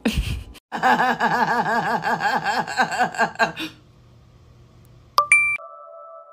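A wavering, warbling tone for about three seconds, its pitch wobbling up and down about five times a second. Near the end a short electronic ping sounds and settles into a steady tone.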